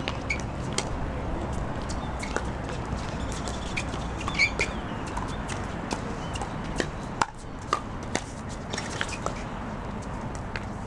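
Pickleball rally: paddles striking the hollow plastic ball in a series of sharp pops at irregular intervals.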